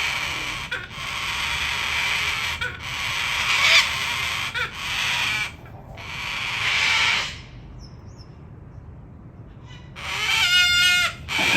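Birds calling harshly in drawn-out screeching bursts, then a quieter spell and a fast rattling call near the end.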